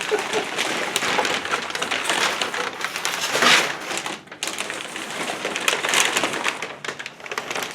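Packing paper (reused Christmas wrapping paper) being pulled out of a parts box and crumpled: continuous dense crinkling and rustling.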